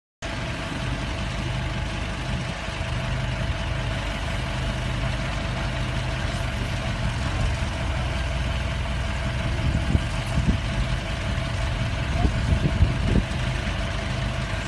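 Engine idling steadily under a steady whine, with a few knocks near the end as a forklift sets a pallet of sod into a pickup's bed.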